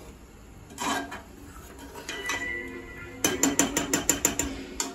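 Metal spoon stirring chicken curry in a pressure cooker pot, knocking and scraping against the pot, then clinking rapidly against its rim about ten times in the last two seconds, each strike ringing.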